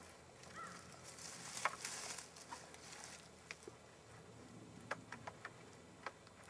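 Faint rustling and scattered light clicks and knocks from rope, gloves and wooden poles being handled while logs are lashed together. There is a brief burst of rustle in the first half and a string of single sharp ticks after it.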